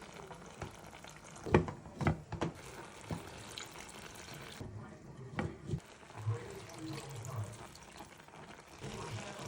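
A few sharp knocks and clinks of kitchen utensils and cookware being handled, the loudest about one and a half seconds in, over a faint steady background.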